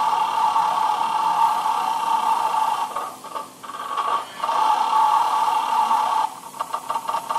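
Electronic roulette arcade machine sounding a steady, buzzy electronic tone while it counts a win over into credits; the tone breaks off briefly about three seconds in. Near the end it changes to a rapid ticking.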